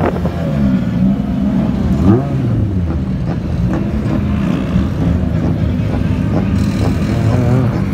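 British Touring Car Championship race cars' 2-litre turbocharged four-cylinder engines running as the cars drive past one after another, their engine notes rising and falling with the throttle.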